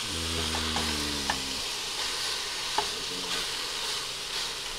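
Diced pork sizzling as it browns in a stainless steel stockpot, with metal tongs clicking against the pot a few times as the pieces are turned. A low hum sounds for the first second and a half.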